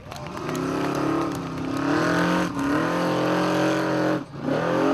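Formula offroad buggy engine at full throttle, powering up a steep dirt hill with dirt spraying from the tyres. The revs dip briefly about halfway and climb again, then cut off sharply near the end, followed by a quick throttle blip.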